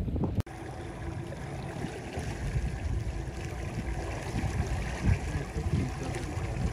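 Low, steady hum of a boat's outboard motor at trolling speed, with water lapping at the hull.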